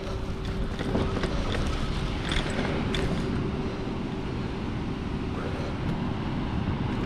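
Wind rumbling on the microphone as the camera moves along a dirt trail, with a few light clicks and rattles in the first three seconds.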